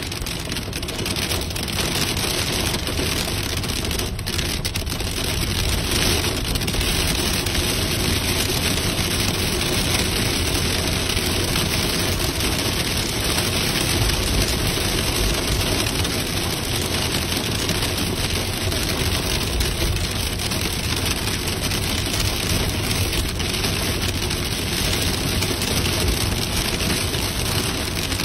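Heavy rain falling steadily on a car's roof and windscreen, heard from inside the cabin, mixed with the car running on a waterlogged road.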